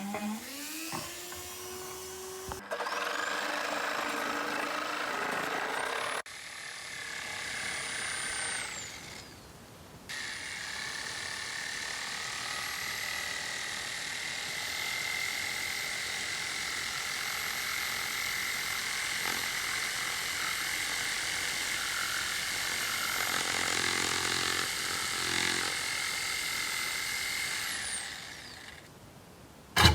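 Electric power tool running at speed with a steady high motor whine, in several short clips cut together. The longest clip spins up about ten seconds in and winds down near the end.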